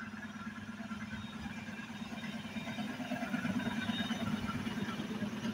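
ED2T electric multiple unit running past: a steady hum and rumble that grows louder about two and a half seconds in as the cars go by.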